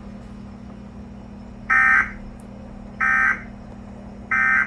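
Emergency Alert System end-of-message code: three short bursts of SAME digital data tones, about a third of a second each and just over a second apart, marking the end of the alert.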